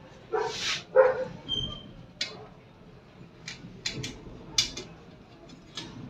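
Two short barks from a dog about half a second and one second in, then scattered light clicks and taps from handling the opened laminator's metal chassis and gears.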